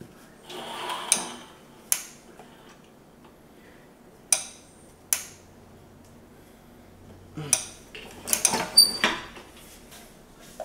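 Hard objects being handled and set down: a few separate sharp clacks, then a quick run of clatters about eight to nine seconds in.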